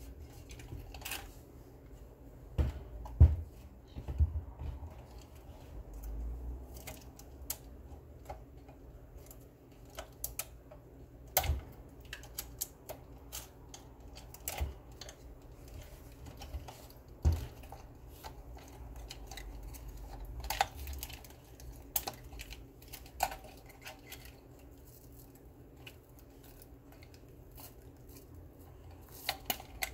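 Hands handling the plastic housing and circuit board of a portable Bluetooth speaker being taken apart: irregular light clicks and knocks of plastic parts and connectors, the loudest a few seconds in.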